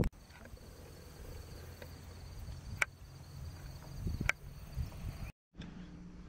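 Low wind rumble on the microphone over open marsh, with a faint steady high chirring of insects. Two sharp clicks sound about a second and a half apart, and after a short cut a low steady hum comes in near the end.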